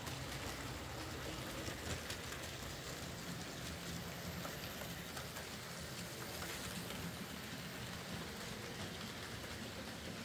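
Bachmann Ivatt 2MT OO gauge model tank locomotive on a test run after a drivetrain repair, pulling wagons round the track: a steady low motor hum with a fine, continuous clicking rattle of small wheels on the rails.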